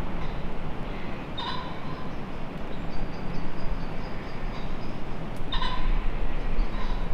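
Strong wind blowing through young willow trees and across the microphone. A short, harsh animal call sounds twice, about four seconds apart, with faint birdsong in between.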